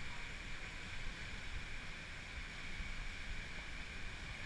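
Whitewater rapids rushing through a rock canyon, a steady hiss of water over a low, churning rumble.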